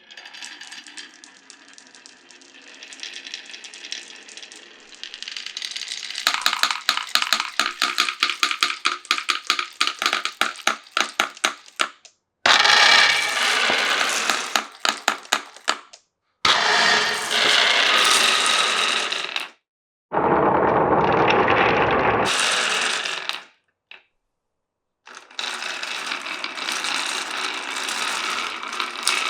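Glass marbles rolling and clattering through a wooden marble run: a quick run of clicks for the first dozen seconds, then several stretches of rolling rattle that break off abruptly.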